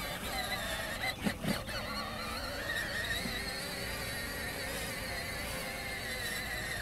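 Battery-powered ride-on toy pickup truck's electric drive motors and gearboxes whining as it drives over grass, with a couple of knocks about a second in; the whine cuts off suddenly as the truck stops at the end.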